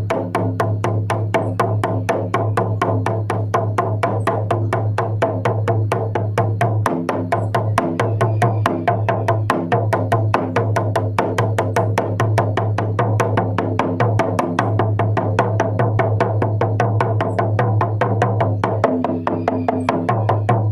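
Drum beaten in a steady, fast, even rhythm of about five strokes a second, over a low sustained drone.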